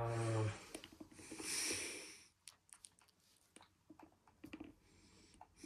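A man's voice trailing off in a brief hum, then a sharp breath out through the nose about a second and a half in, followed by faint scattered clicks.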